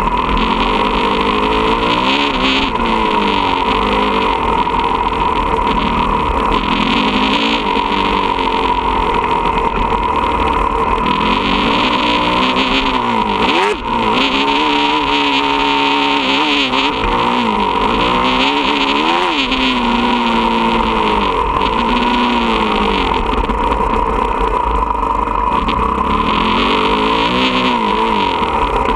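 Motocross bike engine revving up and down again and again as it is ridden around a dirt track, over a steady rush of wind noise. The engine note drops away briefly about halfway through.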